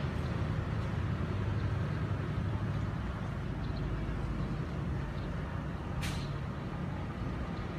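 Steady low background rumble, with one short hiss about six seconds in.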